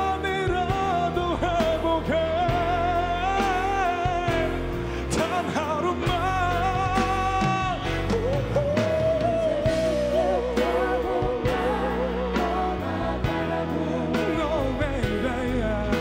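Pop ballad performed by a male singer with band accompaniment and drums; the voice holds long notes with a wide vibrato.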